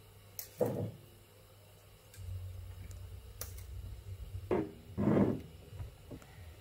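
Kitchen handling sounds: a few short knocks and clatters as a seasoning canister is shaken over a bowl of meat and set down on the counter. A low hum comes in about two seconds in.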